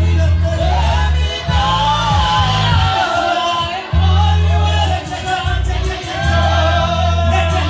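Gospel worship music: voices singing a melody over a loud, heavy bass line that drops out briefly a few times.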